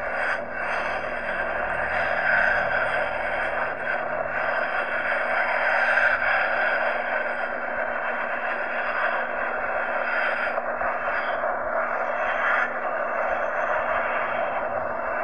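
Boeing 777's GE90 jet engines at takeoff power during the takeoff roll, a steady rushing roar heard from a distance.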